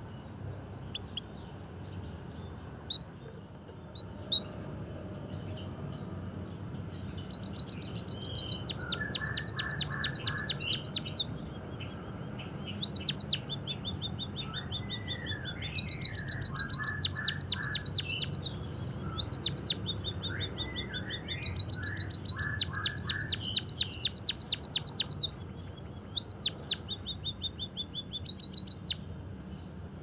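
White-headed munia singing: several bursts of rapid, evenly repeated high ticking notes, each a few seconds long, mixed with lower buzzy chirps. The first long burst comes about seven seconds in.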